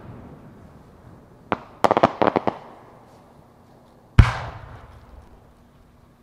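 Aerial fireworks shells. An earlier boom fades at the start, a quick cluster of sharp cracks comes about two seconds in, and another loud boom follows about four seconds in, echoing as it fades.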